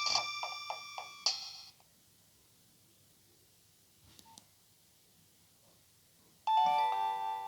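Nokia 3120 ringtones: one melody ends with a few fading notes about a second and a half in, then a pause with a faint click, and the next ringtone starts suddenly with steady beeping notes near the end.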